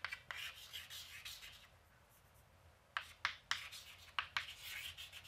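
Chalk writing on a chalkboard: scratchy strokes, then a pause of about a second, then a run of sharper taps and strokes as the letters are formed.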